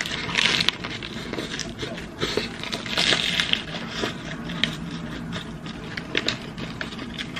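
Paper wrapper crinkling and rustling around a roujiamo as it is handled and pushed back, in several bursts, the loudest near the start and about three seconds in, with scattered small clicks.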